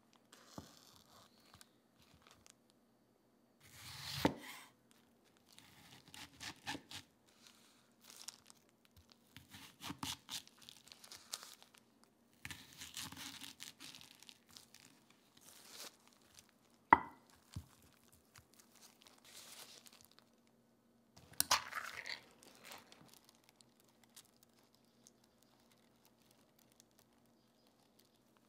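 Food preparation in bursts: the papery skin of a new onion being peeled and torn with crinkling, and a kitchen knife cutting into the onion on a wooden chopping board, with one sharp knock of the knife on the board about two-thirds of the way through.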